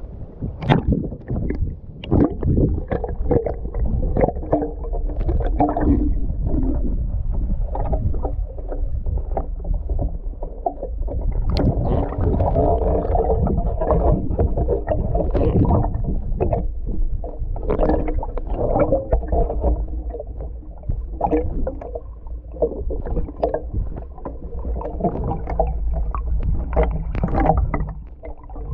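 Muffled sloshing and gurgling of lake water around a person wading chest-deep, heard through a camera at and below the water surface. A steady low rumble runs under frequent small knocks and splashes.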